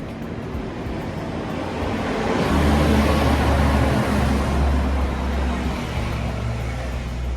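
A road vehicle passing: a rush of noise that swells to a peak about three seconds in and then fades, over a low engine hum that sets in partway through.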